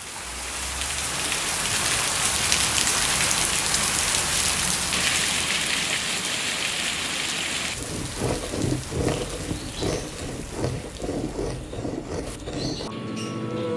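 Heavy rain splashing on pavement, fading in at the start and easing after about eight seconds, when a run of soft, irregular knocks comes through the hiss. Music begins just before the end.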